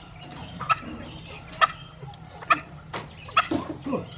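Junglefowl giving a string of short, sharp clucks, about one a second at first and coming faster near the end.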